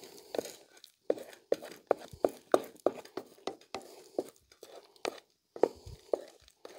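Wooden spatula scraping and knocking against a frying pan while stirring scrambled eggs: a quick run of strokes about three a second, spacing out toward the end.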